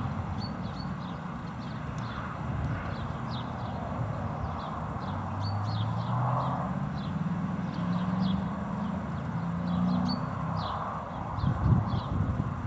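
A ridden horse's hooves thudding dully on grass turf, loudest near the end as the horse comes close. Small birds chirp in quick short notes throughout, and a low hum rises in steps through the middle.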